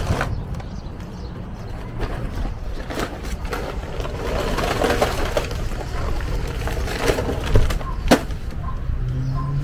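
Plastic bags rustling and a few sharp knocks and clicks as a small charcoal grill and a bag of charcoal briquettes are handled, over a constant low outdoor rumble. Near the end a low steady hum comes in.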